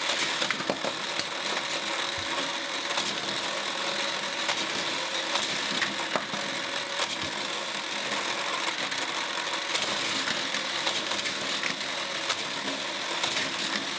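Small plastic toy cars running around a plastic race track driven by a motorized booster: a steady whirring rattle with frequent sharp clicks.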